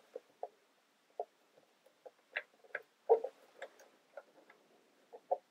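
Plastic building-kit pieces clicking and tapping as beams and cross beams are handled and pressed together on peg-and-hole joints: scattered small, irregular clicks, with a quick cluster of several about three seconds in.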